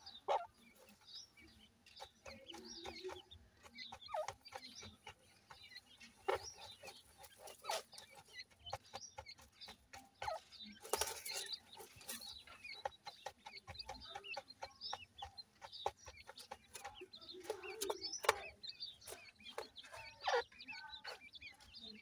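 A francolin hen clucking low now and then while her chicks peep in small high chirps, among scattered sharp clicks.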